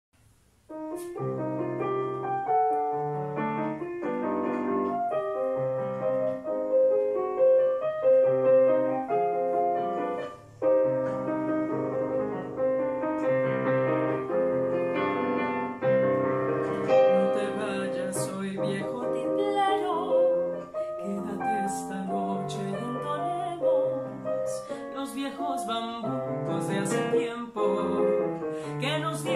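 Digital piano playing a Colombian bambuco, starting a moment in with the introduction; about halfway through a woman's voice joins, singing with the piano.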